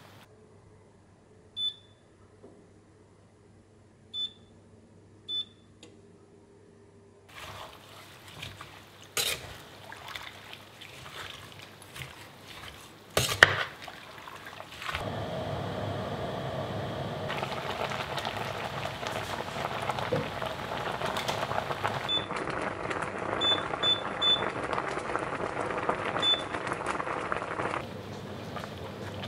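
An induction hob's touch controls beep a few times. A spoon stirs and knocks in a stainless steel pot, with one sharp knock against the pot. Then green tomato and onion chutney mixture cooks in the pot with a steady bubbling, broken by a few more short beeps.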